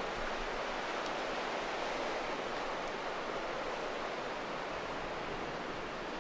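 Sea surf washing steadily against the shore: an even, unbroken rush with no distinct wave breaks.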